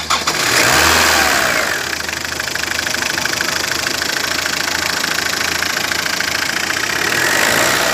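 Freshly overhauled Tata Indica V2 four-cylinder diesel engine catching right at the start and running up for about a second and a half, then settling into a steady idle. This is its first start after the rebuild.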